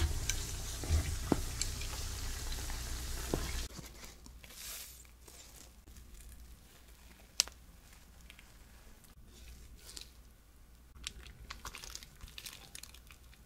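Yeasted doughnuts frying in hot canola oil: a steady sizzle with scattered pops that cuts off about three and a half seconds in. Then quieter crackling and tearing as a fried doughnut is pulled apart with gloved hands, with one sharp click about seven and a half seconds in.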